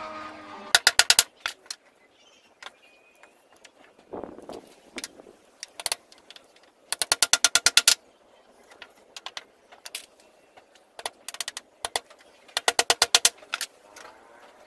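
Hammer driving nails into thin 2 x 3 cm wooden frame strips in quick runs of light blows, about ten a second: one run about a second in, another about seven seconds in, and a third near the end, with a few single taps and a short rustle of handled wood in between.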